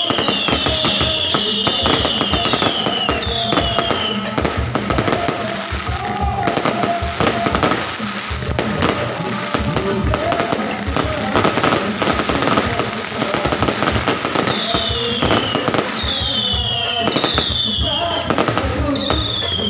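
Aerial fireworks going off in quick succession, a dense stream of pops and crackles. Several high whistles fall in pitch over the first few seconds and again near the end.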